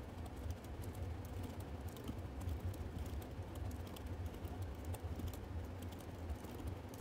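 Faint typing on a computer keyboard: scattered key clicks, including Tab presses, over a low steady hum.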